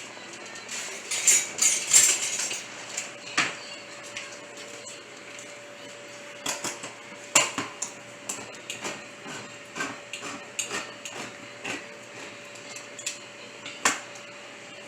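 A metal spoon scraping and clinking against a cooking pot as the peas and seasoning are stirred: a burst of scraping in the first couple of seconds, then scattered sharp clinks, over a faint steady hum.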